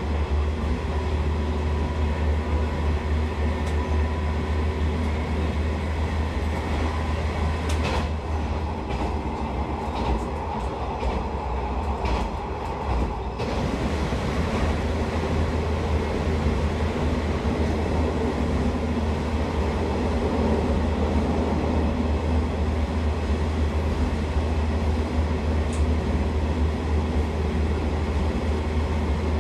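Passenger train running, heard from inside the carriage: a steady low rumble of wheels on the track with the car's running hum, and a few sharp clicks and rattles around the middle.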